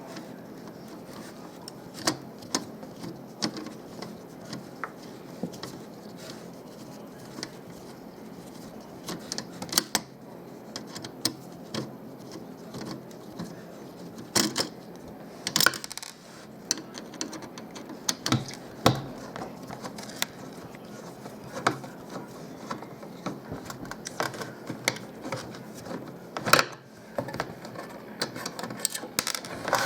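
Scattered sharp clicks and clacks of metal and plastic parts and tools as a car stereo is taken apart by hand, coming at irregular moments over a steady faint background noise.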